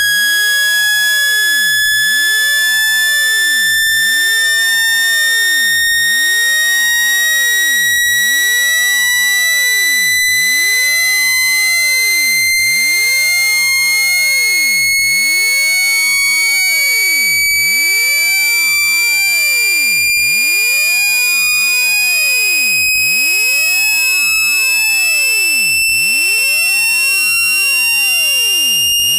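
Electronic water-eject tone for clearing water from a phone speaker: one loud, shrill tone with overtones, held at a steady level and gliding slowly upward in pitch. Its vibration is meant to shake water droplets out of the speaker.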